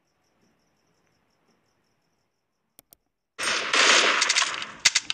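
A mouse-click sound effect, two quick clicks, just under three seconds in, then a loud burst of rapid rattling cracks like automatic gunfire from about three and a half seconds, broken by short gaps.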